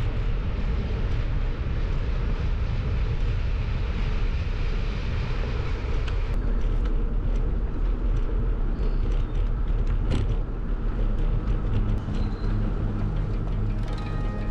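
Steady, wavering wind and road noise on a bicycle-mounted camera's microphone while riding a paved road, with scattered small clicks and rattles. Music fades in near the end.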